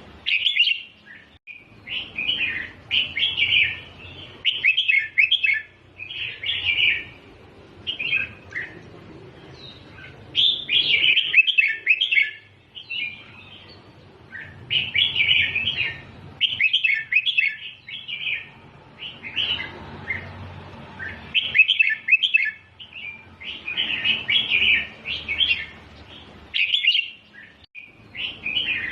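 Red-whiskered bulbul singing: bursts of quick, bright warbling phrases, each a second or two long, repeated with short pauses between them.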